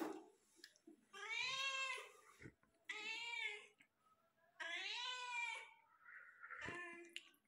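Domestic cat meowing: three drawn-out meows, each about a second long and rising then falling in pitch, then a shorter, lower meow near the end.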